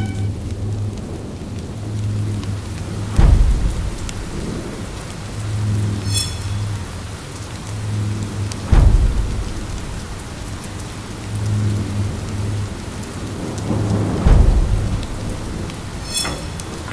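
Steady rain with three claps of thunder, about five and a half seconds apart, over a low pulsing drone.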